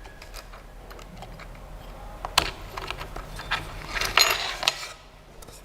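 Irregular mechanical clicking and rattling, with a sharp click about two and a half seconds in and a busy cluster of clicks around four seconds.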